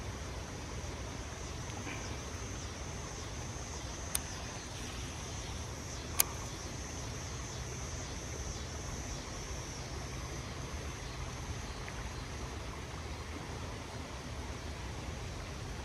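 Steady creekside ambience: a constant high insect drone over a low rumble, with two sharp clicks about four and six seconds in, the second one louder.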